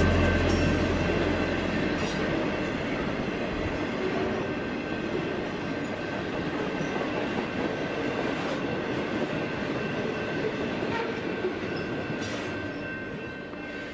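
Train running on rails: a deep rumble dies away in the first two seconds, then the rolling noise goes on steadily and more quietly, with a thin steady high ringing tone and a few sharp clicks.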